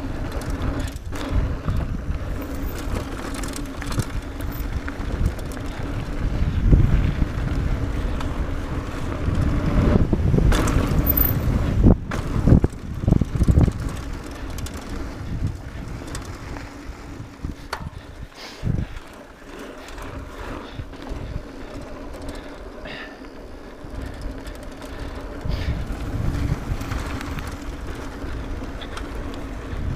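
Mountain bike riding fast down a dirt trail: a steady rumble of tyres on dirt and air rushing over the microphone, with the bike rattling and knocking over bumps. Loudest through the middle, with a cluster of sharp knocks around 10 to 14 seconds in.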